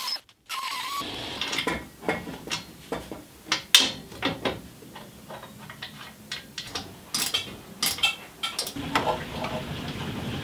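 Irregular metallic clicks and clanks of hand tools working on metal AN oil-line fittings. A steady low hum comes in about a second before the end.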